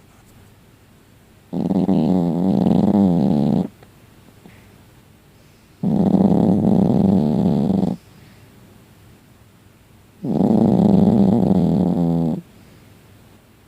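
Loud snoring: three long snores, each about two seconds, coming about every four seconds with quiet breaths between.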